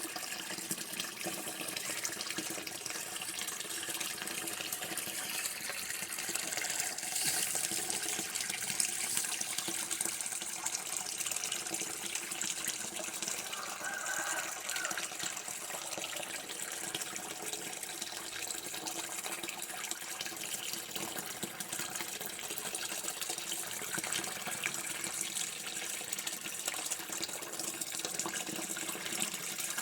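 Running water flowing steadily, an even splashing stream.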